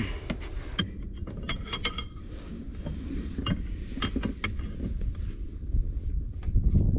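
Wrench work on a bulldozer's hydraulic line fittings: irregular metallic clicks, taps and clinks of tools on steel fittings while the hose is being unscrewed, over a low background rumble.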